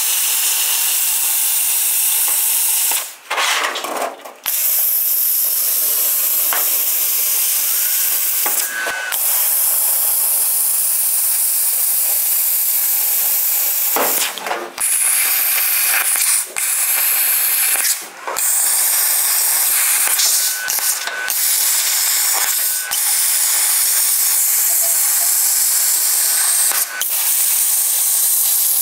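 Plasma cutter hissing steadily as it cuts through sheet-steel car body panels, stopping briefly several times and starting again.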